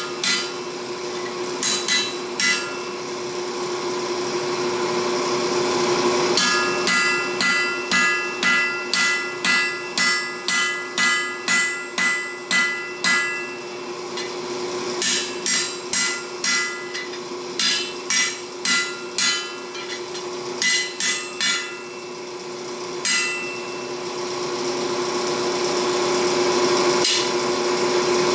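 Hammer forging a steel langseax blade on an anvil, drawing out its bevels. The blows come in runs of about two a second with pauses between, and each strike rings. A steady hum runs underneath throughout.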